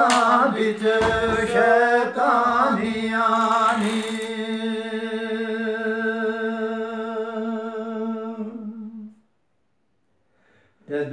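A man singing a Gojri bait (folk verse) unaccompanied: a wavering sung phrase, then one long held note that fades out about nine seconds in. After a short silence the singing starts again at the very end.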